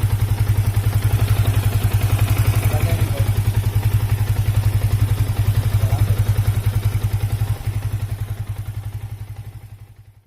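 Yamaha Vixion New's single-cylinder four-stroke engine idling with an even pulsing beat and a slight tapping rattle, a strange 'ketak' noise from a stock, never-opened engine. It fades out near the end.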